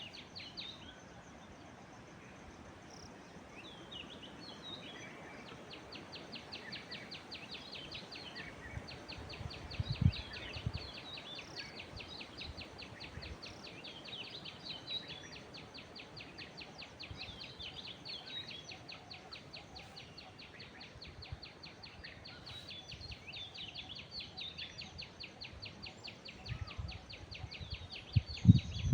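Common myna giving short, varied calls over a fast, even pulsing trill that runs steadily in the background. There are low thumps about ten seconds in and again near the end.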